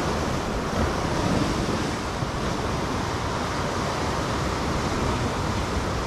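Sea surf breaking and washing over a rocky shoreline: a steady rush of water.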